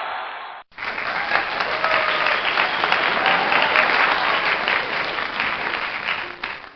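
Music fading out, then from about a second in a crowd applauding: a dense spatter of many hands clapping, cut off abruptly near the end.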